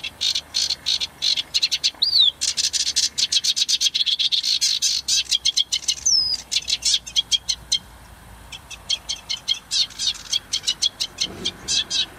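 Sedge warbler singing: a fast chattering song of rapidly repeated notes, with a couple of clear down-slurred whistles mixed in. The song breaks off for about a second a little past the middle, then starts again.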